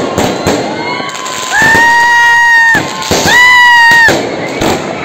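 Aerial fireworks crackling and popping in a rapid run of sharp cracks. About a second and a half in, and again about three seconds in, a loud high-pitched steady tone sounds over them, each held about a second.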